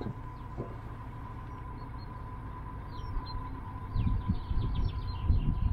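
Narrowboat's engine running steadily under way, a low hum, with small birds chirping from about three seconds in. An uneven low rumble grows from about four seconds in.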